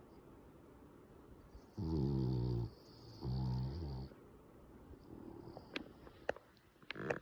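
A sleeping French bulldog snoring: two loud snores, each about a second long, one right after the other, then quieter breathing. This snoring is typical of the breed's short, flat-faced airway. A few sharp clicks sound near the end.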